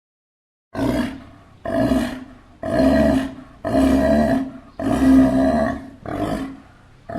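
Sea lion barking repeatedly: a regular series of about seven loud barks, roughly one a second, starting just under a second in.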